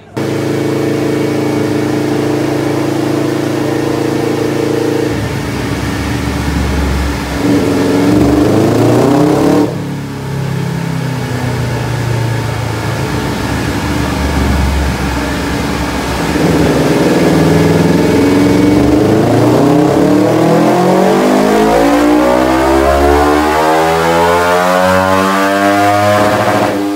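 Racing motorcycle engine on a dynamometer. It is held at steady revs, revved up and cut off sharply about ten seconds in, then run up in a long power pull with the revs climbing steadily for about ten seconds until near the end.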